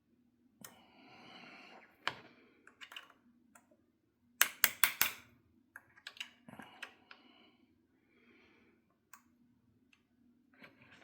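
Metal parts of a Vudoo Gen 1 bolt's firing pin assembly clicking and scraping as they are handled and worked back together, with a quick run of four sharp clicks, the loudest, about four and a half seconds in.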